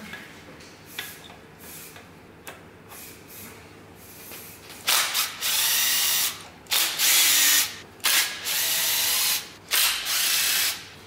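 Cordless impact wrench hammering on bolts at the front of an engine block in several bursts of about a second each, starting about five seconds in; before that, only a few light clicks of handling.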